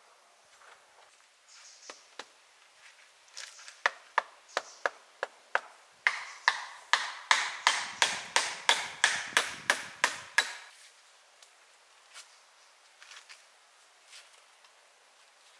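A hand tool striking wood. A few scattered knocks come first, then a quick, regular run of about fifteen sharp blows, roughly three a second, which stops suddenly about two-thirds of the way through.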